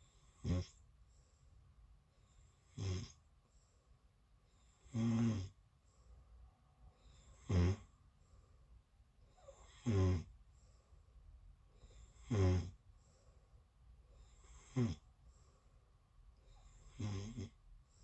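A person snoring in sleep: eight short snores at an even pace, about one every two and a half seconds.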